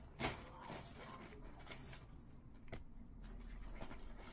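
Plastic and paper packaging rustling softly as it is handled, with a sharper crackle just after the start and another a little under three seconds in.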